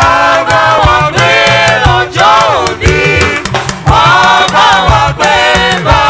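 Church choir singing a Yoruba hymn in several voices, backed by a live band with bass and percussion.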